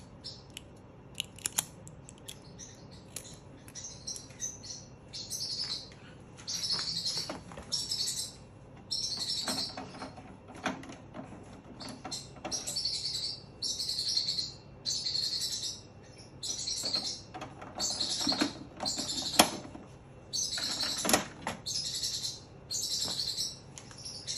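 Ink cartridges being handled and snapped into an HP DeskJet Plus 4132's carriage: scattered plastic clicks and knocks, the sharpest about three-quarters of the way through. Throughout, a high chirping repeats about once a second.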